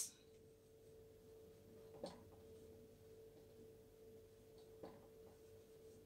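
Near silence: a faint steady hum, with two faint ticks about two and five seconds in as a marker writes on a whiteboard.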